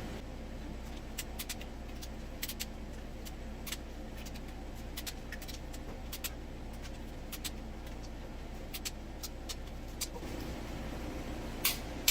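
Faint, irregular clicks of hand tools on the engine's cylinder head bolts, over a steady low hum.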